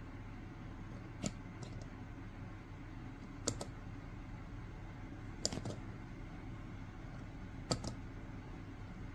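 Rechargeable silicone LED nursery night light being tapped on its top, giving a handful of light clicks about every two seconds, some in quick pairs. Each tap switches the light on, off or to another brightness.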